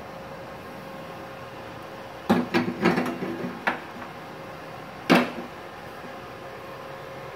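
Hard knocks and clatter as a steel plate and a MIG welding torch are set down on a workbench: a cluster of knocks a little over two seconds in, then one sharper, louder knock about five seconds in. The welding machine's steady hum runs underneath.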